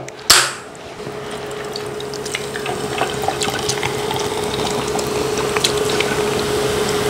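An aluminium soda can of cola is cracked open about a third of a second in, a sharp pop with a short hiss. Then the cola is poured into a glass mug, fizzing and crackling with bubbles and growing louder as the glass fills.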